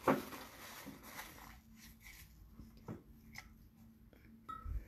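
Faint handling sounds as a paper towel is pressed down into a glass measuring cup of liquid: a few soft rustles and light taps, then a low thump near the end.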